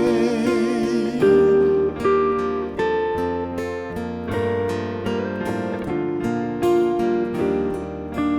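Worship-song accompaniment in an instrumental interlude: an acoustic guitar strummed in a steady rhythm, with a sung note held with vibrato dying away in the first second.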